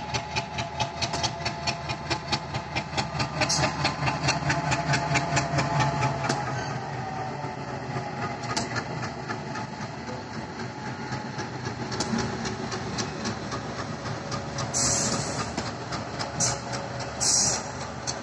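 Diesel locomotive and passenger coaches passing at speed. The locomotive's engine rumbles under a fast, even clicking of wheels over rail joints for the first six or seven seconds, then fades into the lighter running noise and occasional clacks of the coaches. Two short hissing bursts come near the end.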